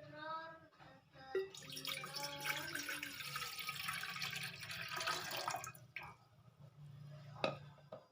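Water poured into a container, with a rising note as the vessel fills. It is followed by two sharp clinks near the end.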